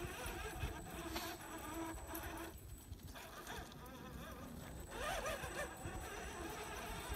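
Small electric motor of an RC rock crawler whining steadily as it is driven, breaking off briefly about two and a half seconds in and then picking up again more faintly.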